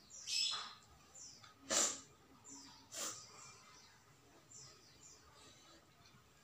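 Close-miked eating sounds: wet smacks and squelches from chewing and from fingers mashing rice with chili sauce. Three sharper smacks come in the first three seconds, the loudest about two seconds in, and faint high falling chirps recur throughout.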